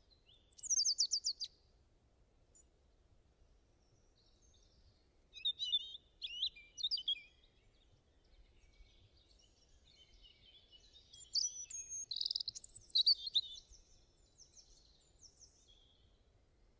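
Birds chirping and singing in three short bouts of quick high phrases, with quieter stretches between them.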